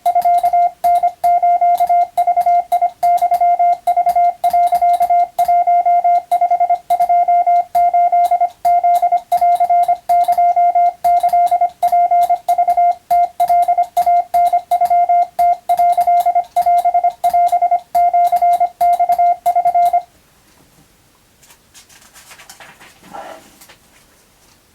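Morse code (CW) sidetone beeping in rapid dots and dashes at one steady pitch, Japanese wabun telegram text being keyed for radiotelegraph practice. The keying stops about 20 seconds in, leaving only faint rustling.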